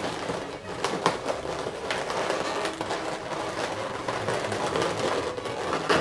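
Latex modelling balloons rubbing and squeaking against each other as a long black balloon is twisted and wrapped around a balloon figure, with a few sharp squeaks over a steady scratchy rubbing.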